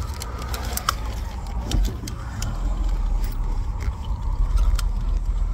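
Steady low rumble of a car heard from inside the cabin, with scattered light clicks and taps over it.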